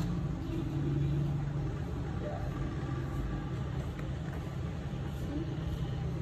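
Steady low background rumble, with faint voices now and then.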